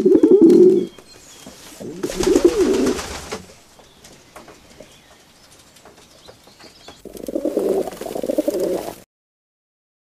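Irani high flyer pigeon cooing: three low coos, the second about two seconds in and the last near the end, after which the sound cuts off suddenly.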